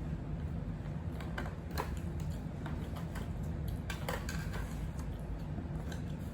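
Eating sounds: irregular small clicks and smacks of chewing and utensils, over a steady low hum.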